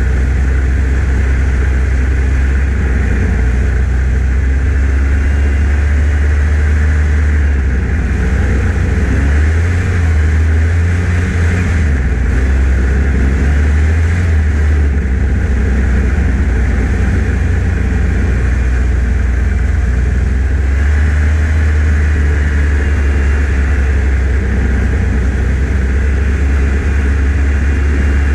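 1989 Yamaha Phazer snowmobile's two-stroke twin engine running under way, its note shifting a little with the throttle a few times.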